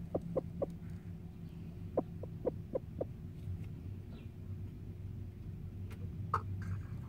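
Broody bantam hen giving short, low clucks in quick runs, three in the first second and five more around two to three seconds in, the grumbling clucks of a hen sitting tight on her nest. A steady low hum lies underneath.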